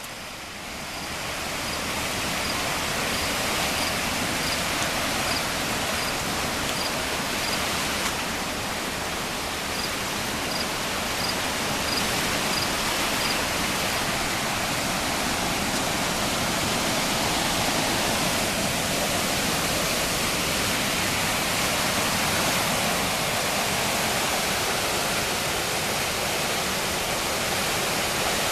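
The Walloomsac River in flood: a steady, even rush of high, fast-moving water, growing louder over the first two seconds and then holding steady.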